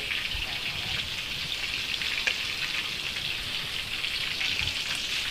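Marinated pork chops frying in hot oil: a steady sizzle with small crackles and pops throughout.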